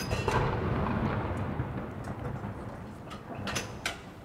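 Rolling echo of a saluting gun's blank shot from an L118 105 mm light gun, a low rumble that fades steadily away. A few light clicks near the end.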